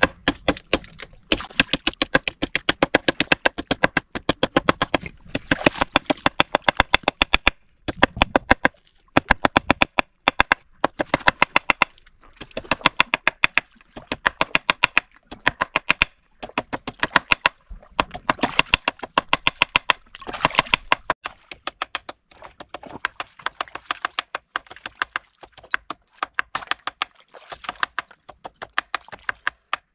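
Rapid hard knocking, many sharp strikes a second, in runs of one to two seconds separated by brief pauses.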